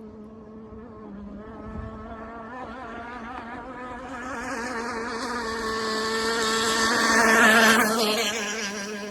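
RC hydroplane's two-stroke gas engine buzzing at speed as the boat runs past: it grows louder to a peak about three-quarters of the way through, then its pitch drops as it moves away.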